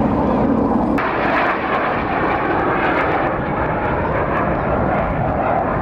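Airplane engine noise, a loud, steady rushing sound, with an abrupt change about a second in where the higher-pitched part drops away.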